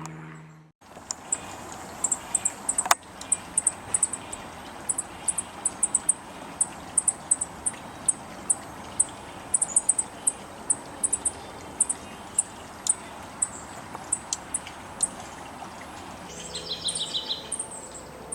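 Juncos calling: short, very high, thin chip notes repeated irregularly, about two or three a second, over a steady outdoor hiss. Near the end comes a brief burst of lower, rapid twittering.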